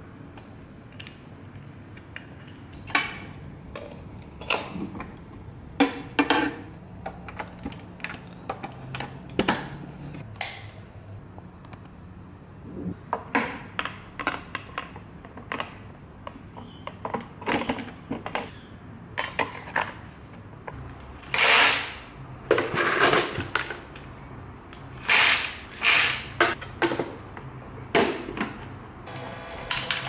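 Hard plastic parts of an automatic pet food dispenser being handled and fitted together: irregular clicks and knocks, with a few longer scraping or rustling bursts in the second half.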